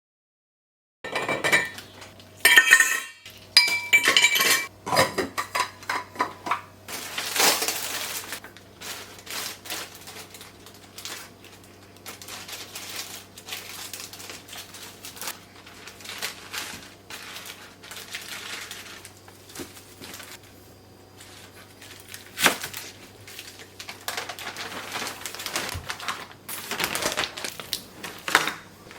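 Dishes and cutlery clinking and clattering as they are handled, with several ringing metallic chinks in the first few seconds, then a run of lighter knocks and clicks.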